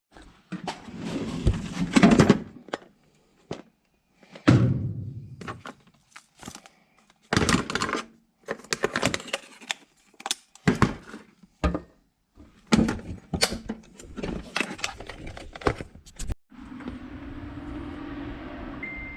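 A run of separate thunks and knocks, each lasting up to about a second, with abrupt silent gaps between them. About three seconds before the end they give way to a steady low rumble.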